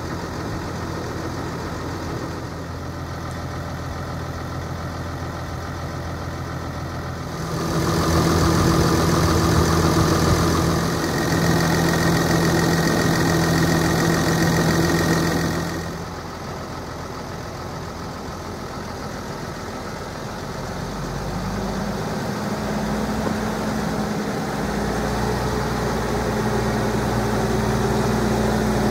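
New Holland T7.170 tractor's six-cylinder diesel engine idling steadily. For about eight seconds partway through it is louder and brighter, heard up close at the open engine bay, then drops back; near the end a deeper hum builds gradually.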